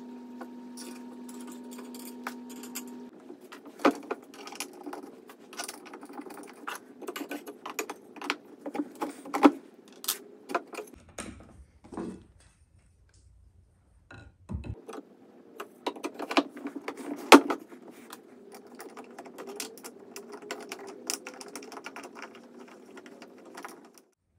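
Small metal bolts and an Allen key clicking and rattling against each other and the wooden chair frame while a flat-pack dining chair is put together by hand. The sharp clicks come irregularly, with a quieter break about halfway through.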